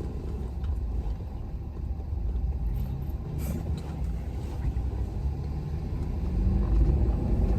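Road and engine noise of a moving pickup truck heard from inside the cab: a steady low rumble.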